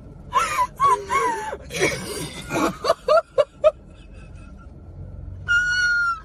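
Two women laughing, with high squealing laughs, a quick run of short laugh bursts about three seconds in, and a high, held squeal near the end.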